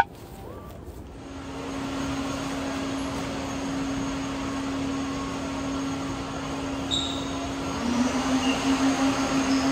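A steady electric motor hum with rushing air, like a vacuum cleaner or blower, starting about a second in; its pitch steps up slightly near the end.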